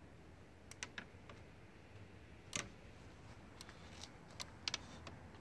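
Faint, scattered clicks and taps, the loudest about two and a half seconds in, with a quick run of them in the last two seconds: a dog's claws on the floor and the doorway threshold as it shifts about at the open door.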